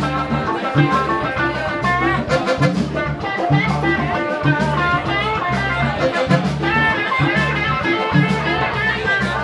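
Live band music: electric guitar played over congas and drum kit, with a repeating low bass pattern.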